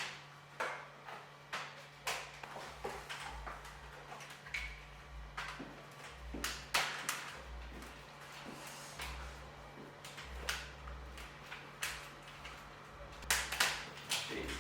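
Irregular clicks and knocks of parts and tools being handled during installation work, over a steady low hum.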